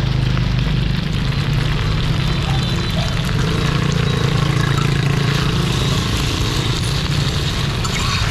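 Cubes of rice-flour cake sizzling steadily in hot oil on a large flat iron frying pan while being par-fried, over a steady low rumble.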